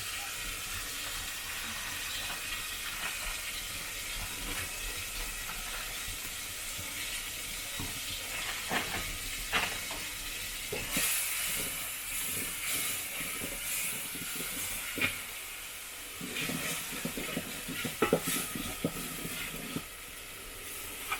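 Chopped tomatoes sizzling in a saucepan, with a utensil scraping and knocking against the pan as they are stirred. The knocks come more often in the second half.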